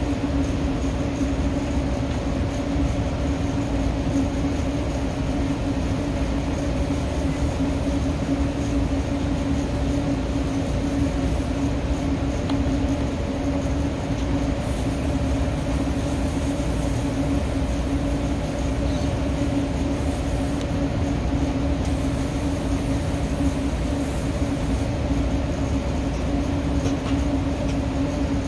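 Steady drone of running rooftop HVAC machinery: an even hum with one strong steady tone over a low rumble. About halfway through come short spells of faint hiss from a hand sprayer spraying coil cleaner onto the evaporator coil.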